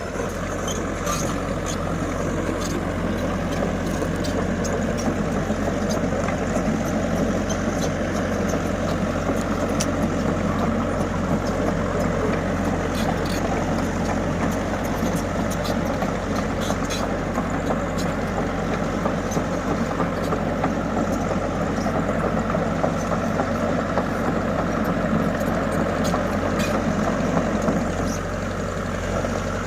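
Komatsu hydraulic excavator's diesel engine running steadily under working load while digging sand, with scattered short clicks and knocks over it. The engine eases off slightly near the end.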